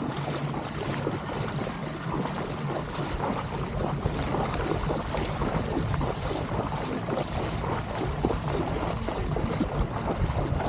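Legs wading through knee-deep water: continuous irregular sloshing and splashing.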